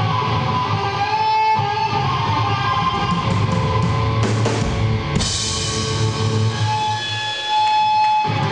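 Loud distorted electric guitar played live through amplifiers: a dense, continuous wall of sound. A high held tone rings out over it about a second in and again near the end.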